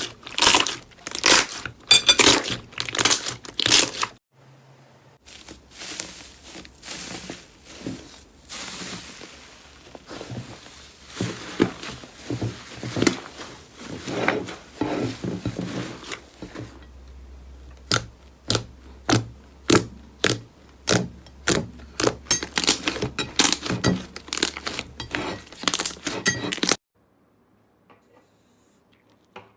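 Crunchy slime being squeezed and pressed by hand, crackling and popping in quick, dense runs of sharp clicks. It changes a few times, with a brief pause about four seconds in, then goes nearly silent in the last few seconds.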